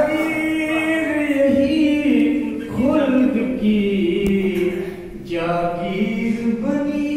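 A male voice singing a naat, an Urdu devotional poem in praise of the Prophet, unaccompanied, holding long wavering notes, with a short break between phrases about five seconds in.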